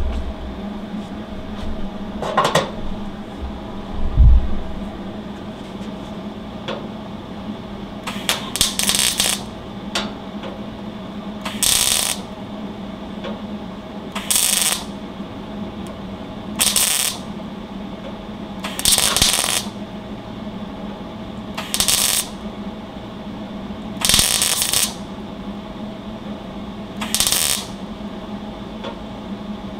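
A MIG welder on thin sheet-steel engine tin, turned way down, fires short crackling bursts about every two and a half seconds from about eight seconds in, filling a small hole tack by tack. A steady low hum runs underneath, and a couple of knocks come near the start.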